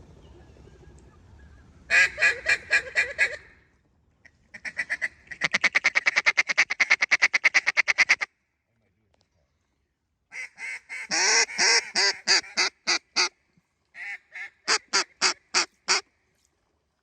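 Mallard duck call blown in runs of loud quacks, with a long fast chatter of about eight to ten notes a second (a feed call) and shorter quacking sequences, separated by pauses.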